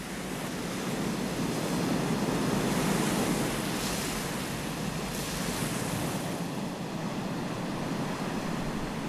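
Ocean surf breaking on rocks, a steady wash of noise that swells and eases, with wind on the microphone. It fades up over the first second.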